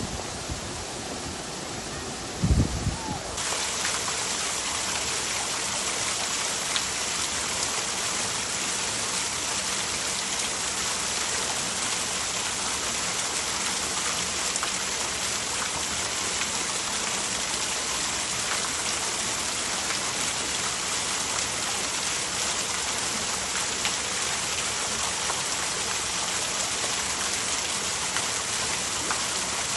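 Steady rushing hiss of running or falling water. There is a low thump about two and a half seconds in, and about a second later the water sound turns brighter and holds steady.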